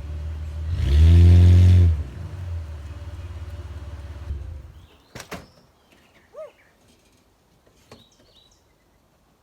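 Pickup truck engine revved hard once, then running on as the truck tries to pull out of deep soupy mud, cutting off about four seconds in. Afterwards birds chirp, with a sharp knock about a second after the engine stops and another near the end.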